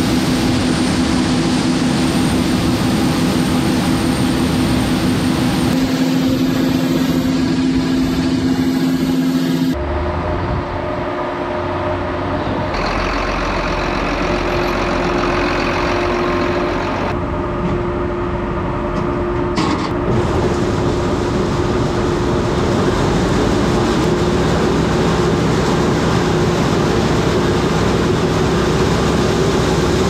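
Diesel harvest machinery, a combine and farm tractors, running steadily with a constant engine hum. The sound changes abruptly several times where separate clips are cut together.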